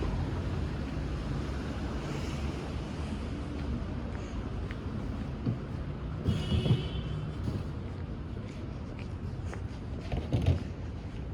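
City street traffic passing, a steady low rumble, with two brief louder sounds about six and ten seconds in.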